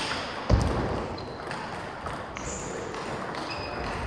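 Table tennis ball struck once as a rally ends, then a loud low thump about half a second in. After that, the sports hall's reverberant background with a few short high squeaks.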